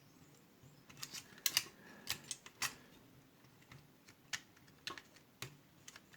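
Faint, irregular light clicks and taps from handling the small metal parts and wire contacts of a battery-operated tin toy car.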